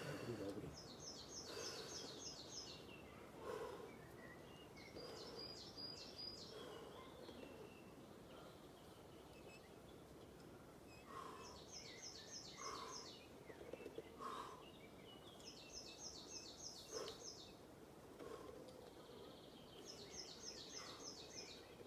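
Faint songbird song: short phrases of quick repeated high notes, each about a second long, sung about five times over quiet background.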